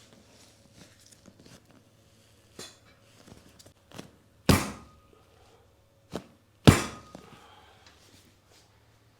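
Two loud, sharp thuds of a chiropractic adjustment about two seconds apart, the patient's body or the treatment table taking the quick thrust, with a few lighter knocks and taps before and between them.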